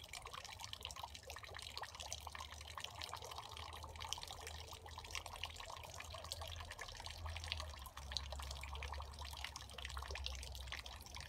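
Faint, irregular dripping and pattering of water, many small drops at uneven intervals, over a steady low rumble.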